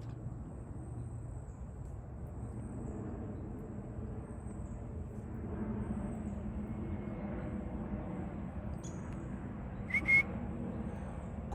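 Outdoor woodland ambience: a steady low background rumble with a faint thin high tone. About ten seconds in there is a short, high two-note chirp.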